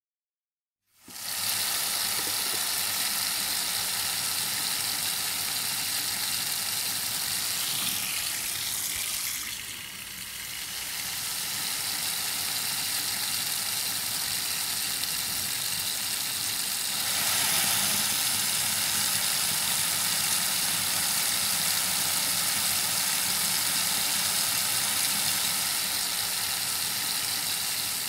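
Water pouring steadily from a single-lever kitchen mixer tap into a stainless steel sink, starting about a second in. The flow dips briefly about a third of the way through and runs louder and brighter in the second half.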